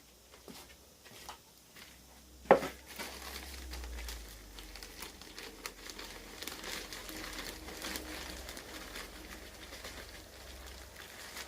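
Gypsum plaster being stirred with water: a sharp knock about two and a half seconds in, then continuous scraping and crinkling as the mix is worked.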